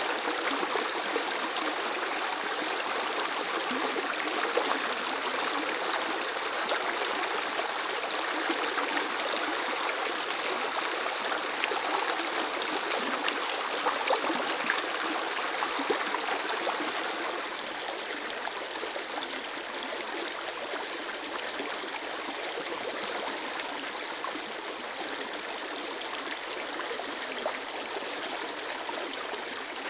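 Small rocky stream running over stones and little cascades, a steady rushing babble. About seventeen seconds in it turns softer and duller.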